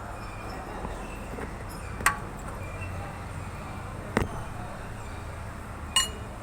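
Three sharp knocks about two seconds apart, each with a brief ring after it, over a low steady hum.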